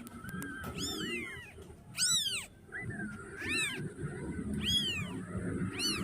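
Young kitten mewing repeatedly for its mother: about five high-pitched calls, each rising then falling in pitch, roughly one a second.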